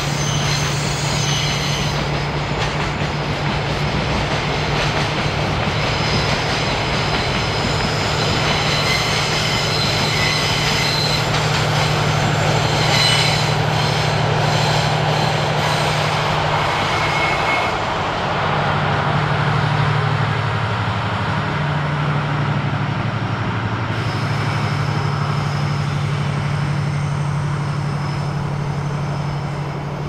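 Container freight train rolling past on a curve, its wheels squealing over the steady drone of a diesel locomotive engine. The red JR Freight DF200 diesel-electric locomotive at the rear of the train passes about halfway through, and its engine note changes pitch as it moves away.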